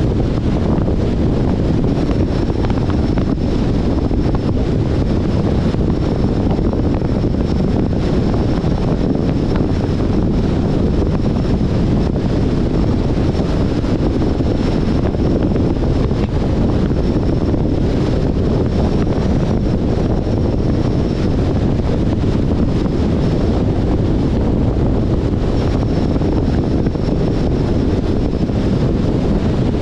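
Steady wind and road noise from a 2021 Jeep Compass driving at a constant pace, with wind buffeting the microphone. A faint thin high whine comes in about two seconds in, drops out for a few seconds past the middle, and returns near the end.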